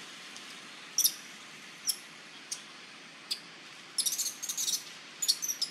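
Short, high-pitched animal chirps, single ones about once a second and then quick clusters of rapid chirps in the last second and a half, over a steady hiss of forest ambience.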